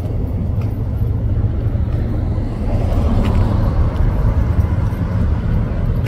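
Road traffic: a car's engine and tyres rumbling steadily, growing a little louder about halfway through.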